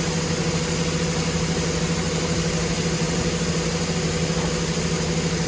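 Corn harvester's engine running steadily, an even hum at a constant pitch with no revving.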